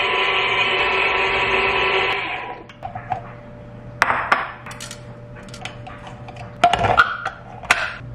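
KitchenAid stand mixer running with its rotary shredder attachment as it shreds cheese: a steady motor whine that stops about two seconds in. After that come a few separate knocks and clinks as the metal shredding cone is handled over a glass bowl.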